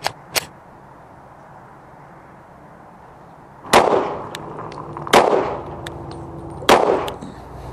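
Glock 22 pistol firing .357 SIG rounds through a drop-in conversion barrel: three shots about a second and a half apart, the first coming nearly four seconds in, each trailing off in a short echo. Two light clicks come right at the start.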